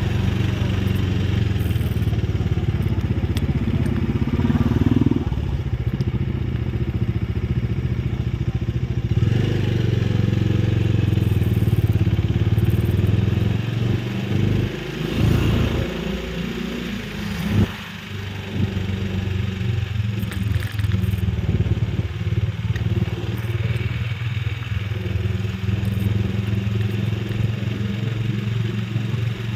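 Small vehicle engine running steadily while travelling along a road, with road and wind noise. The engine note drops away for a few seconds around the middle, then picks up again.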